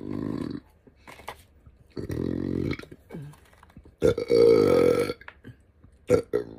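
A woman burping: three long, deep burps, the third about four seconds in the loudest, then two quick short ones near the end.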